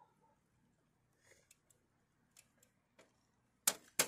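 Sparse light clicks, then two sharp knocks close together near the end, from someone handling a smashed desktop computer tower; no fan or drive starts up, so the machine is dead.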